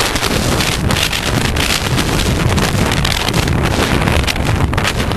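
Loud, gusting wind buffeting the microphone of a camera carried by a moving horse rider.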